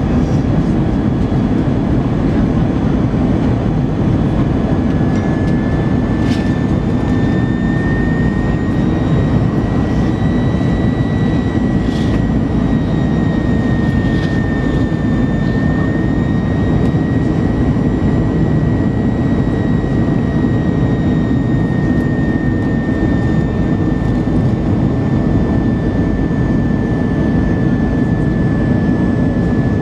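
Airbus A321 cabin noise on descent, heard from a seat over the wing: a loud, steady rush of airflow and engine noise, with a high engine whine that sets in about five seconds in and holds, drifting slightly in pitch.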